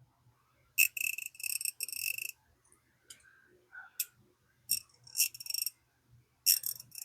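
Freshly cleaned Mustang MS43 3/8-inch-drive ratchet being worked back and forth, its pawl clicking in rapid runs: a longer run of about a second and a half near the start, then several shorter runs. It runs smooth.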